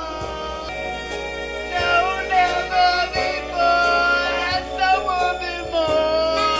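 Background music: a song with a sung melody over instrumental backing, with a low beat thumping about every second and a half.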